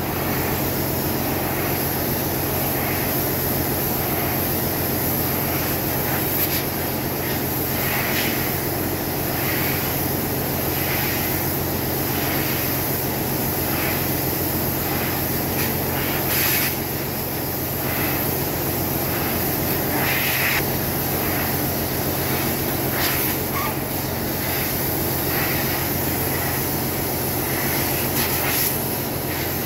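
Steady drone of a ship's engine-room machinery running, a constant low hum with a high hiss over it, and a few faint knocks.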